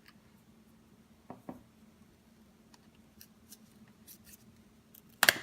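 Plastic guitar pick working around the edge of a Samsung Galaxy S6's glass back, giving faint ticks and two small knocks. Near the end comes one sharp, loud crackle as the heated adhesive gives way and the back glass comes free.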